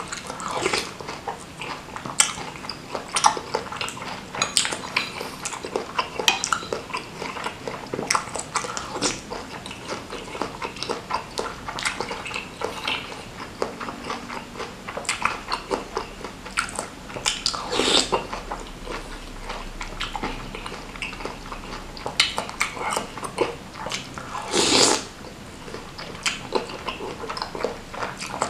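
Close-miked eating sounds of a person chewing bakso meatballs in spicy chilli broth: wet mouth smacks and clicks throughout, with two louder rushes of slurping or breath, about two-thirds of the way through and near the end.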